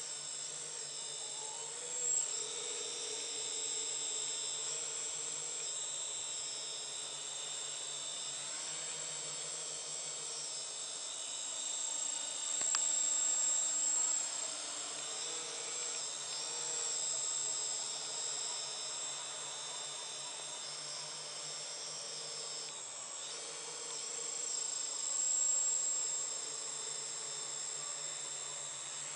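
Electric quadcopter's motors and propellers buzzing in flight, a steady high-pitched whine that swells louder three times as the throttle changes.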